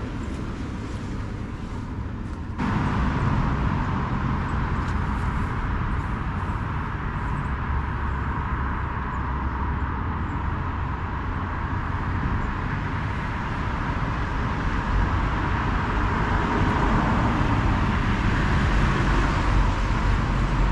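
Steady road traffic from a busy main road: a continuous rush of passing cars and tyres. It grows louder about two and a half seconds in and swells again near the end as more vehicles go by.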